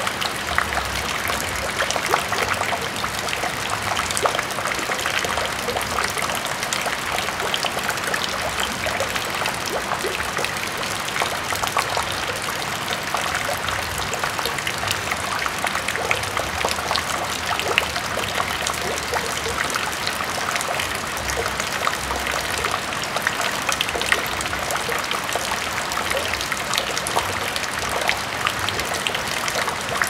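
Rain falling into a bucket of water: a steady, dense stream of small drop splashes on the water's surface.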